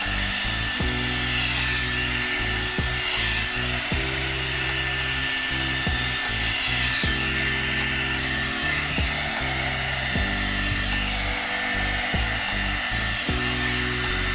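Brush blow dryer running steadily, its motor giving a continuous rushing hiss with a thin high whine, over background music with a bass line.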